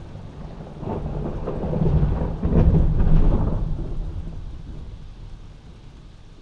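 A thunderclap rumbling in from about a second in, swelling to a crackling peak near the middle and rolling away over the next few seconds, heard from indoors over steady rain.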